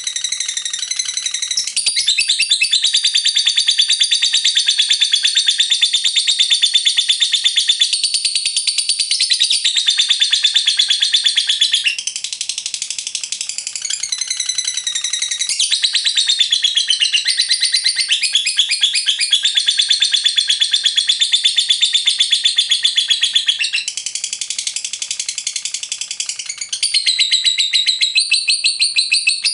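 A lovebird singing a long 'ngekek': a rapid, unbroken chattering trill of high notes. The pattern shifts every few seconds, with two briefer softer stretches.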